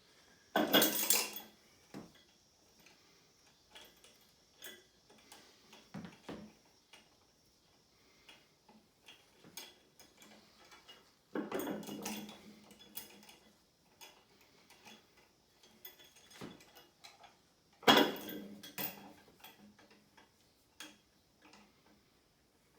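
Metal weight plates and a carabiner clinking and clattering as a loaded grip-lift anvil is handled. There are three louder clatters, about a second in, around twelve seconds and around eighteen seconds, with scattered small clicks between them.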